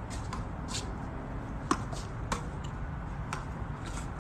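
A handful of short, sharp taps, irregularly spaced about a second apart, over a steady low background rumble.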